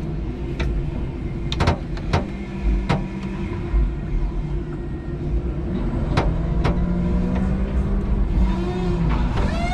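Electric forklift truck running, with a steady low hum and rumble from its drive and hydraulics, broken by several sharp clunks and knocks from the forks and mast as it handles a load of OSB.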